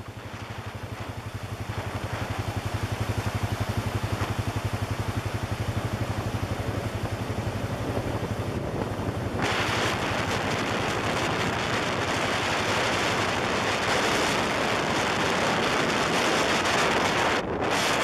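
ATV engine running with a pulsing drone that grows louder over the first few seconds. About halfway through, heavy wind rush over the microphone comes in and covers it.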